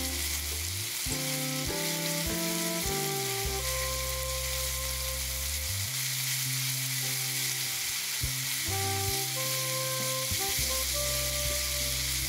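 Ground beef and diced onion sizzling steadily as they fry in a nonstick pan, stirred with a silicone spatula. Soft background music with held notes plays underneath.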